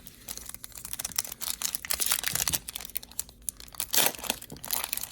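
Foil trading-card pack wrapper crinkling and tearing as it is ripped open by hand: a dense, irregular crackle that gets louder about four seconds in.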